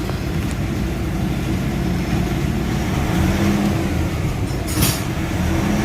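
Pickup truck engine idling with the air conditioning on. Its pitch shifts slightly partway through, and a brief rustle or click comes near the end.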